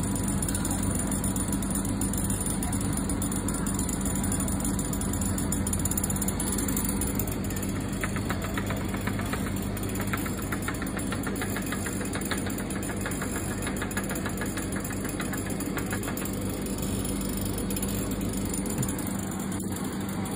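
Steady low machine hum of convenience-store refrigeration equipment: the frozen-drink dispenser and the glass-door drink coolers. Midway a fast, regular ticking runs for several seconds.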